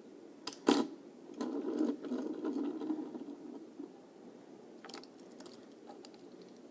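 Handling of a die-cast toy car and its plastic packaging: a sharp click about a second in, then a couple of seconds of rustling and scraping, and a few small clicks later.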